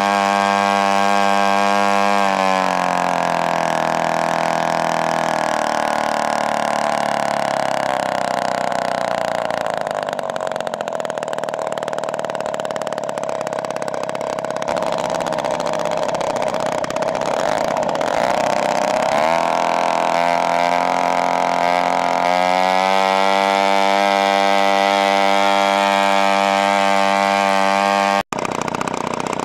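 3W-55 single-cylinder two-stroke petrol engine turning the propeller of a 1/5-scale Spitfire model: idling, then opened up about two seconds in to a high, steady run for roughly seventeen seconds, then throttled back to a steady idle.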